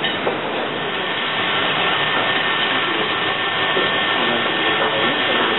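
Steady roar of a professional kitchen's extraction hood and ventilation, with a thin high whine joining about two seconds in.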